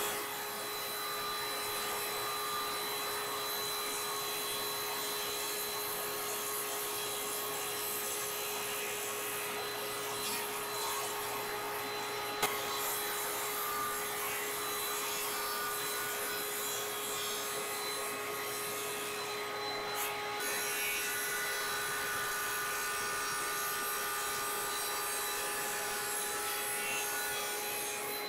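Table saw running with its blade cutting into the edge of a walnut disc as the disc is turned against it: a steady hum with a constant tone under continuous wood-cutting noise, and a single sharp click about twelve seconds in.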